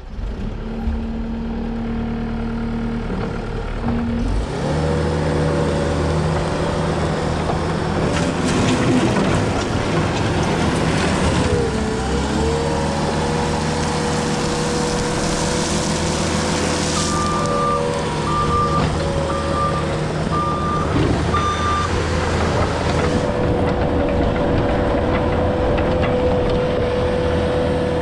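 2017 Case SV280 skid steer's diesel engine running: it throttles up from a low idle about four seconds in and holds steady at high revs, sagging briefly under load around the middle. A backup alarm beeps five times about two-thirds of the way through.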